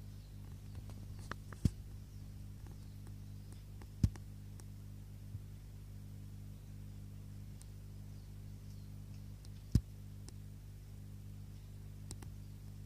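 A steady low hum with a few sharp, isolated ticks or taps scattered through it, three of them clearly louder.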